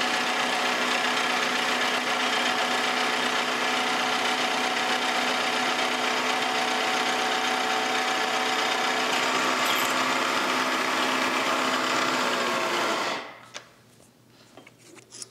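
Vertical milling machine running a twist drill through a forged steel spring hanger blank: a steady motor whine with the noise of the bit cutting. The sound drops away sharply about 13 seconds in, leaving only a few faint clicks.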